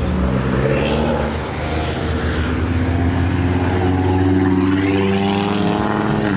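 A car's engine accelerating past at close range, its note climbing steadily over the last few seconds.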